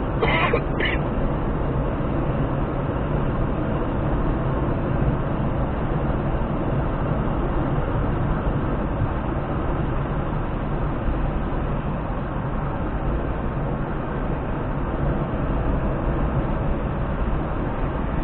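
Steady road and engine noise of a car driving at highway speed, heard from inside the cabin, with a low rumble. A brief higher-pitched sound comes in the first second.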